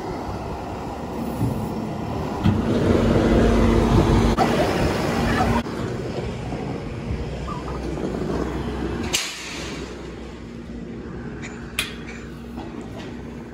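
Bobcat compact track loader's diesel engine running with a steady hum, louder for about three seconds early on, then fading lower. Two sharp clicks come later.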